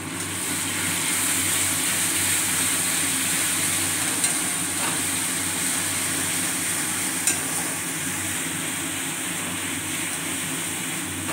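Onions and capsicum in sauce sizzling on high heat in a stainless steel wok while a metal spatula stirs them, with a couple of light clicks of the spatula against the wok.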